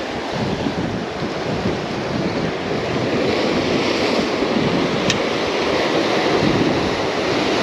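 Ocean surf washing onto the shore, a steady rushing noise that swells slightly, with wind buffeting the microphone. A single short tick about five seconds in.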